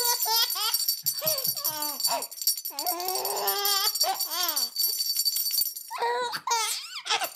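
Baby laughing and squealing in bursts of rising and falling giggles, with a steady high jingling, like a shaken rattle or bells, behind.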